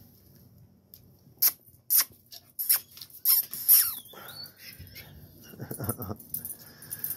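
Two young dogs, a black-and-tan Doberman-type dog and a blue pit bull, mouthing and wrestling. There is a run of sharp clicks and snaps about 1.5 to 4 seconds in, then a wavering whine, a brief low growl about 6 seconds in, and a thin high whine near the end.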